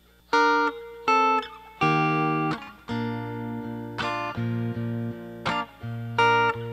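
Instrumental introduction on a Telecaster-style electric guitar: a sequence of struck chords, one every second or less, each left to ring out before the next.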